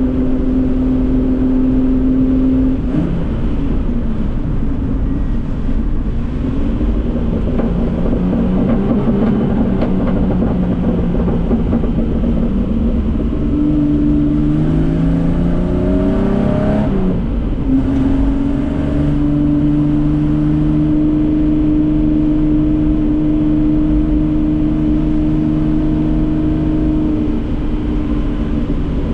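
Datsun 240K Group C race car's straight-six engine at racing revs. It holds a steady high note, drops away about three seconds in, then climbs in pitch through a gear and breaks with a shift about halfway through. After that it holds a steady high note again, over a constant hiss.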